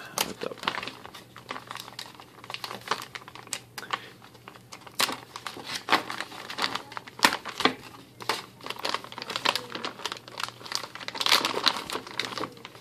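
Clear plastic packaging bag crinkling and crackling as hands pull it open and handle it, a run of irregular sharp crackles.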